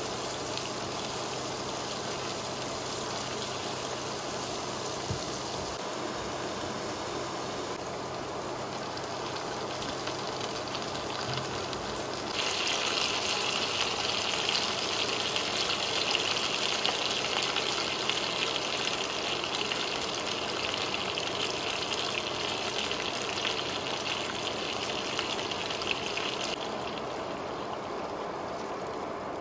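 Hot oil sizzling in a frying pan, first around chopped garlic and chili, then around browning chicken wings. The sizzle grows louder and brighter about twelve seconds in and settles back a few seconds before the end.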